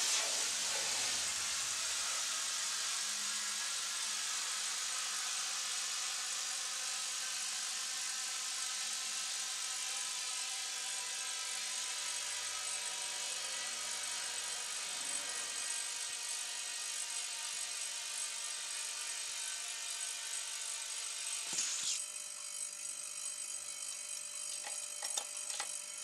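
Compressed air from a homemade air compressor built from an old refrigerator compressor, hissing steadily through the hose nozzle into an exercise ball as it inflates. A short click about four seconds before the end.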